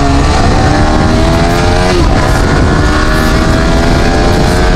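Yamaha R15 V3's 155 cc single-cylinder engine revving hard under hard acceleration. Its pitch climbs in second gear, drops with an upshift to third about two seconds in, then climbs again. Heavy wind rush on the helmet microphone at speed.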